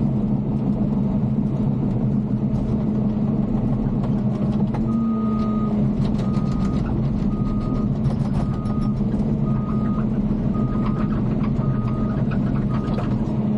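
Bulldozer's diesel engine running steadily under load. From about five seconds in, a backup alarm beeps at about one beep a second as the machine reverses.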